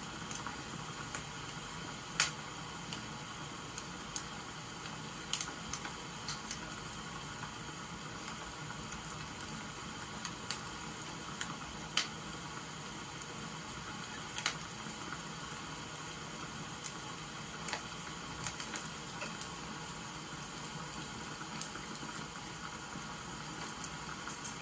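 Wood fire crackling over a steady hiss of rain, with irregular sharp pops every second or few.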